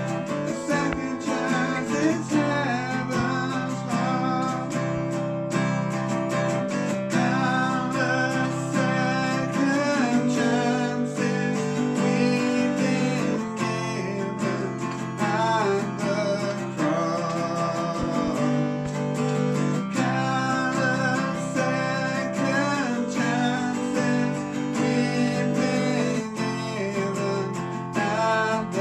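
Music: a song carried by strummed acoustic guitar, with a melody line moving above it.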